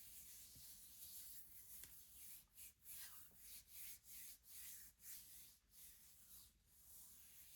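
Fingertips rubbing and scratching a surface in quick, soft strokes, about two a second, faint.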